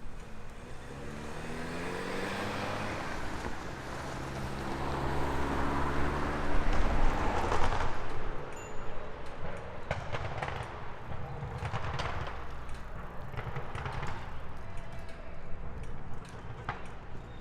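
A motor vehicle accelerating past, its engine pitch rising over the first few seconds and loudest about seven seconds in as it goes by, followed by scattered clicks and knocks.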